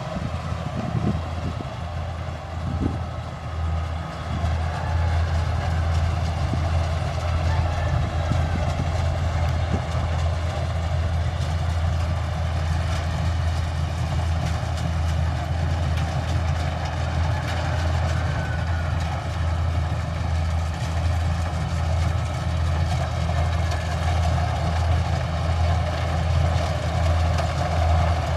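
Kubota rice combine harvester's diesel engine running steadily, a constant low drone with a busy mechanical clatter above it.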